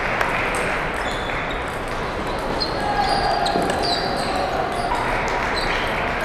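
Table tennis balls clicking off paddles and tables in a rally, many sharp ticks at an uneven pace, over the steady hubbub of a large hall full of other tables in play and people talking.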